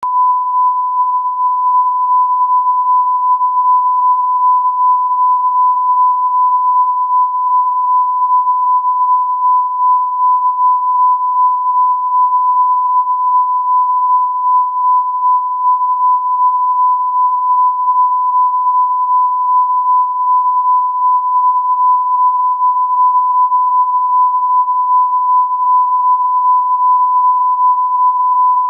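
1 kHz audio line-up reference tone at the head of a broadcast edit: a single pure, steady beep held without a break.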